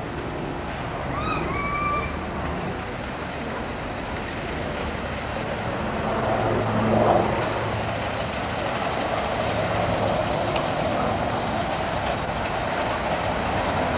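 A 7¼-inch gauge miniature railway train running along the track toward the listener, a steady rumbling noise that grows a little louder in the second half. A short high chirp comes about a second in.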